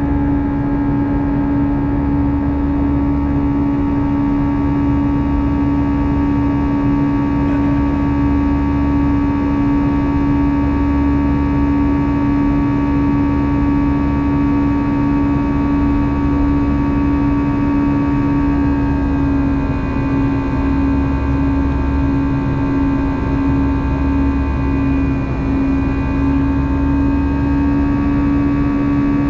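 Airbus A320's CFM56 jet engines and airflow heard from inside the cabin during the climb: a loud, steady drone with a strong low hum and several higher whining tones. About twenty seconds in the higher tones dip slightly in pitch, then rise back near the end.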